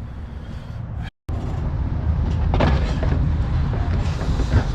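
Steady low rumble of a vehicle, with scattered light clicks and knocks. It drops out briefly about a second in, then returns louder.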